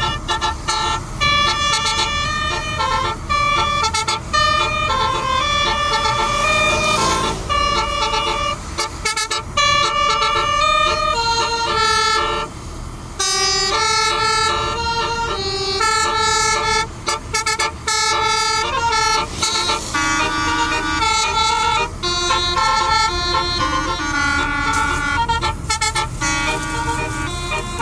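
Telolet basuri multi-tone musical air horn on a medium tour bus playing a tune: a loud stream of held notes stepping up and down in pitch, with a brief break about halfway, over a low rumble.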